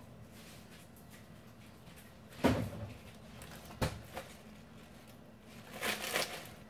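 Kitchen knocks and clatter as dishes are fetched for serving: one loud knock about two and a half seconds in, a sharp click just over a second later, and a short clattering rustle near the end.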